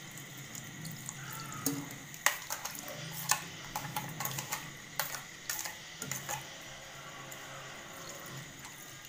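Metal spoon clinking and scraping against a steel mixer jar while milk is poured in, with a run of sharp clinks starting about two seconds in and dying away after about six seconds.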